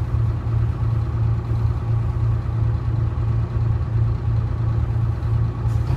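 The bus's Detroit Diesel 6V71 two-stroke diesel idling, a steady low rumble with an even pulsing beat.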